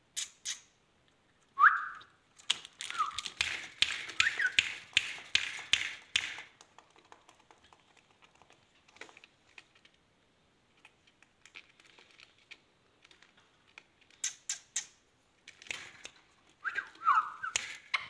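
Indian ringneck parakeet giving short rising whistled chirps, a few around two to four seconds in and again near the end, amid sharp clicks and rattles of its wire cage as a hand works at the bars.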